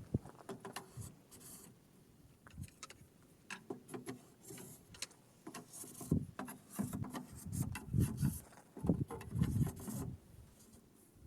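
Irregular clicks, taps and rubbing, as of hard parts being handled and fitted together by hand, busiest in the second half.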